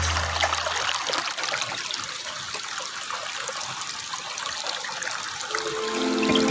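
Water trickling and gurgling, an even splashing hiss full of small droplet clicks. Soft background music fades out about a second in and comes back near the end.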